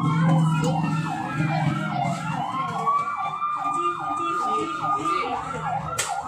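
Emergency vehicle sirens sounding together: a fast yelp repeating about three times a second, and a slower wail that falls and then rises again. A sharp click comes near the end.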